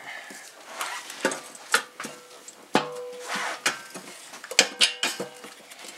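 Metal clinks and knocks as a VQ35DE upper intake manifold is set down and shuffled into place on the lower manifold. The knocks are irregular, and a few ring briefly.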